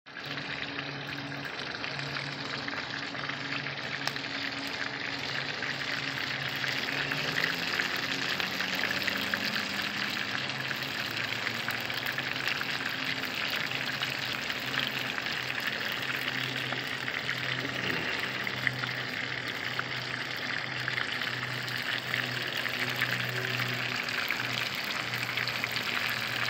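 Whole trout frying in olive oil in a pan, a steady sizzle, with a low hum underneath.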